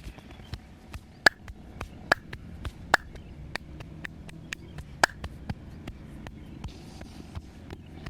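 Percussive hand massage of the head and back: an irregular run of sharp slaps, taps and clicks, about three to four a second, with several much louder cracks among them.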